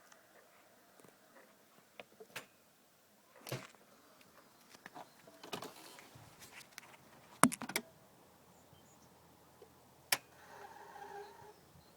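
Scattered clicks and knocks, the sharpest about seven and a half seconds in, with a brief pitched tone a little after ten seconds; no starter cranking and no engine running.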